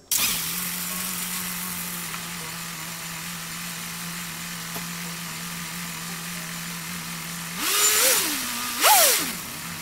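Nissan Sunny's twin-cam 16-valve four-cylinder petrol engine idling steadily just after being started on fresh oil. It is revved twice near the end, the pitch rising and falling each time.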